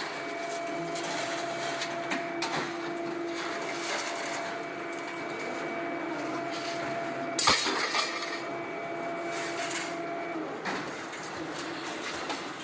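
Horizontal baling machine running, its hydraulic power unit giving a steady whine over irregular clanks and knocks. There is one loud bang about seven and a half seconds in, and the whine stops shortly before the end.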